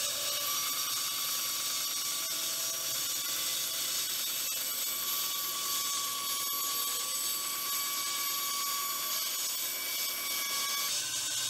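Bandsaw running with its blade cutting through a wooden pen blank: a steady hissing cut with a thin whine over it that changes pitch near the end.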